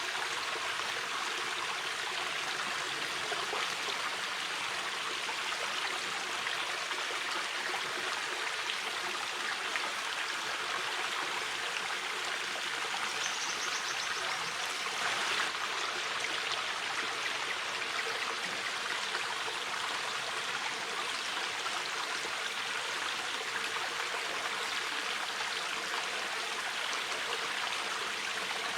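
Mountain river flowing: a steady, even rush of water over stones. The sound swells slightly for a moment about halfway through.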